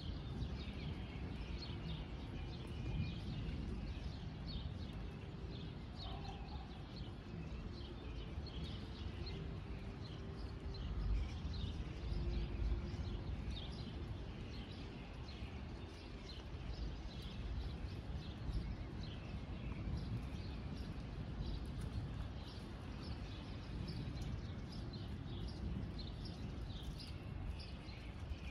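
Birds chirping over a steady low rumble of wind on the microphone.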